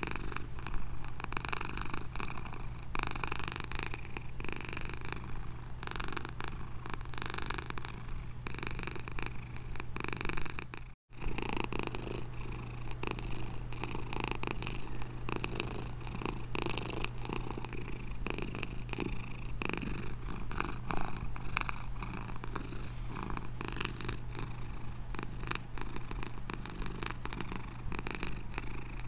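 Domestic cat purring steadily and continuously. The purring cuts out for a split second about eleven seconds in, then carries on.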